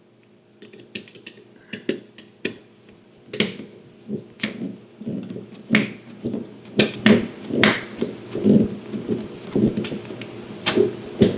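Irregular clicks and taps of a Leatherman Free T4 multitool being worked apart with Torx drivers on its pivot screws, metal tool on metal tool. Sparse at first, busier and louder from about three seconds in.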